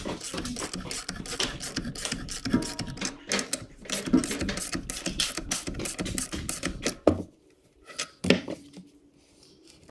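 Small ratchet wrench clicking rapidly as it turns a bolt in a steel steering clutch hub; the clicking stops about seven seconds in, followed by a couple of metal knocks.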